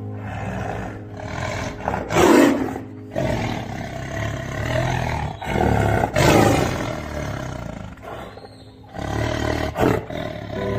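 Big cat roaring, with the loudest roars about two, six and ten seconds in.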